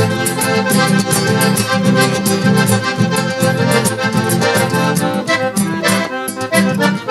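Accordion playing an instrumental passage of traditional southern Brazilian (gaúcho) music over a steady beat.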